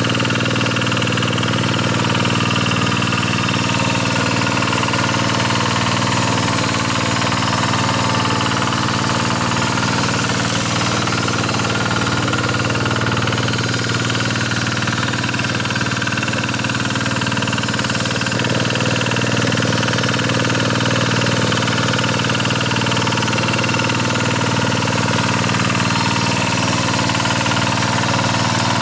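Kubota single-cylinder diesel engine of a two-wheel hand tractor running steadily while it rotary-tills mud.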